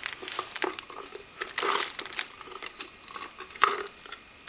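Plastic blind-bag packets crinkling in irregular bursts as they are handled and tugged out of a tight toy container, with the loudest crackles about halfway through and again near the end.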